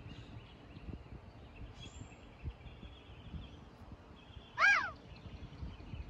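Quiet backyard ambience with a few faint bird chirps, and one short, loud animal call that rises and then falls in pitch about three-quarters of the way through.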